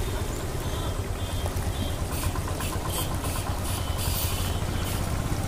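Hot oil sizzling and bubbling in a large wok as chicken liver pieces deep-fry, over a steady low hum.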